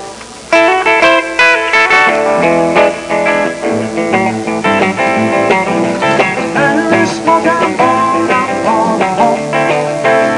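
Live band playing on acoustic and electric guitars, coming in about half a second in, with some bending notes in the second half.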